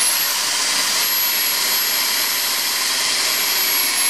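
Electric drill spinning up to speed, then running at a steady high whine as it bores a screw hole through a cherry wood gunwale and the Kevlar canoe hull.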